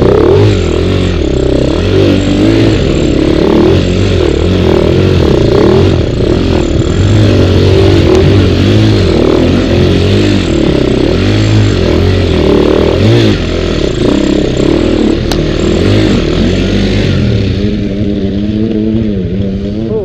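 Dirt bike engine revving up and down hard as the bike pushes through a river crossing, with water splashing around the front wheel. Near the end it settles to a lower, steadier note.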